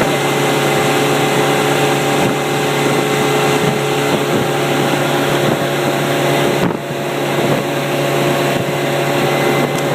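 Motorboat engine running steadily while the boat is under way, with wind on the microphone.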